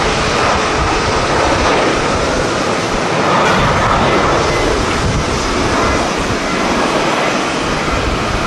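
Jet airliner engines, a loud steady rush with faint whining tones, mixed with strong gusty wind buffeting the microphone.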